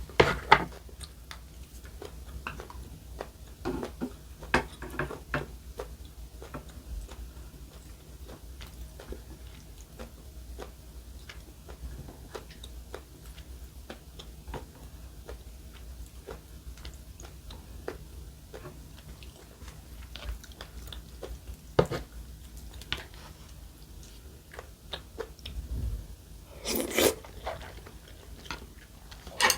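Close-miked chewing and biting of food, with scattered crisp, moist clicks and crunches and a louder burst of mouth sounds near the end.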